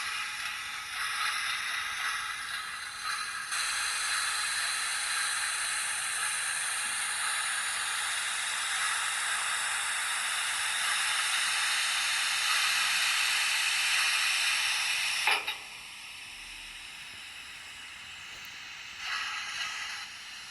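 QSI sound decoder in a model steam locomotive playing a steam hiss through its small speaker. The hiss grows louder a few seconds in and holds steady, then cuts off sharply about fifteen seconds in. A fainter hiss follows, with a short burst near the end.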